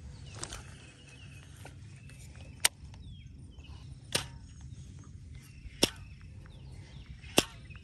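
Baitcasting rod and reel cast over and over: five sharp clicks about a second and a half apart, over a steady low hum.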